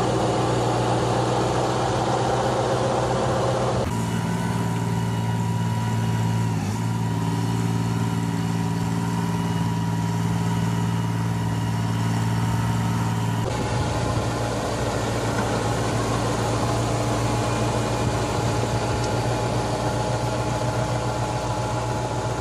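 Tractor engines running steadily while pulling soil bed-forming implements, with a steady hum. The engine note changes abruptly twice, about four seconds in and again near fourteen seconds, as one tractor gives way to another.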